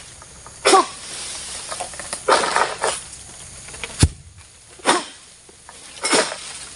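Repeated rasping strokes of a long-pole oil palm harvesting sickle (egrek) pulled against a fruit bunch's short stalk in the palm crown, each pull a short noisy swish, with one sharp knock about four seconds in. The stalk is so short and tight against the frond that the blade struggles to cut it free.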